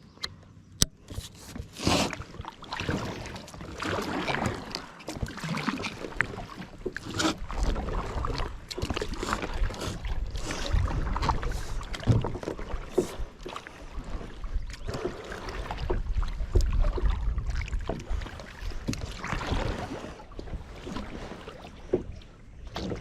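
Irregular knocks, clicks and rustling close to a body-worn camera, with gusts of wind rumbling on the microphone about a third of the way in and again past the middle.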